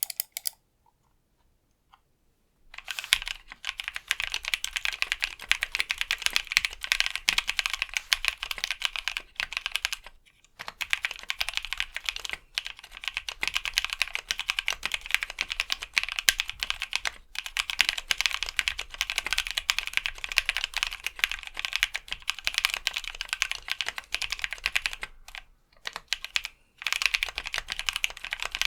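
Sound test of fast typing on a mechanical keyboard with Akko Neon double-shot PBT cherry-profile keycaps over lubed Novelkeys Cream linear switches on an aluminium plate: a dense stream of key clacks. It starts about three seconds in and breaks off briefly twice, once near the middle and once near the end.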